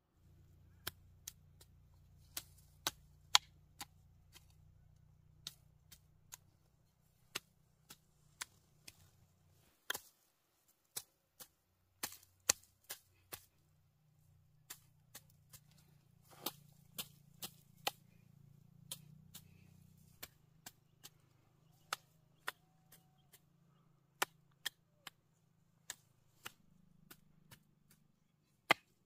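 Small short-handled hand hoe chopping into dry, clumpy soil: sharp, short strikes, irregular, roughly one or two a second with brief pauses.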